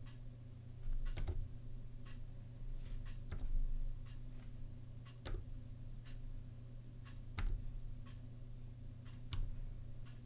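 Slow, halting typing on a Zilpzalp split ergonomic keyboard with Kaihua Twilight low-profile switches. Single keystrokes click at uneven gaps, sometimes two or three close together and then a pause, over a steady low hum.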